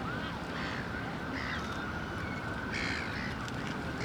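A few short, harsh bird calls, caw-like, over a steady background noise.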